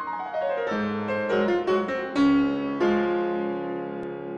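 Short piano outro jingle: a few struck chords, the loudest a little past two seconds in, the last one left ringing.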